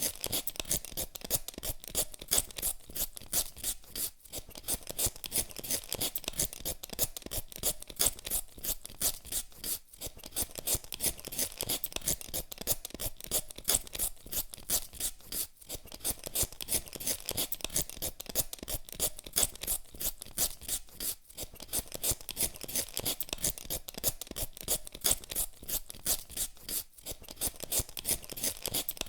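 Hand vegetable peeler scraping the skin off a potato in quick, repeated rasping strokes, pausing briefly about every six seconds.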